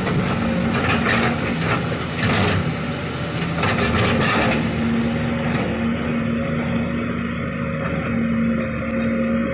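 Excavator's diesel engine running with a steady hum. In roughly the first four and a half seconds there are several short clanks and rattles from the machine working.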